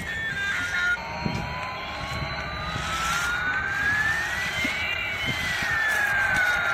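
Battery-operated toy airplane's electronic sound effects: a short beeping melody that stops about a second in, then a slow siren-like tone that rises for about four seconds and falls again.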